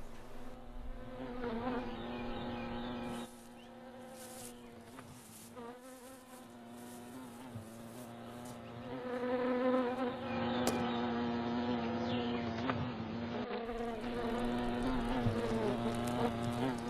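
A steady buzzing drone on one held pitch, with wavering higher tones over it. It drops quieter about three seconds in and swells louder again around nine to ten seconds in.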